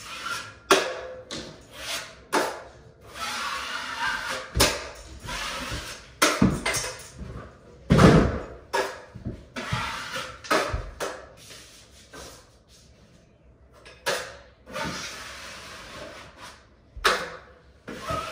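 Drywall taping knife scraping joint compound along a paper-taped inside corner, in repeated strokes, with scattered knocks and clicks of the knife and tools. A heavy thump about eight seconds in.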